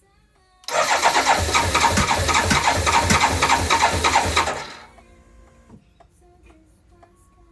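The starter motor of a BMW K1200LT cranks its inline-four engine in a steady, rhythmic chug for about four seconds, then stops without the engine catching. This is the motorcycle's no-start fault.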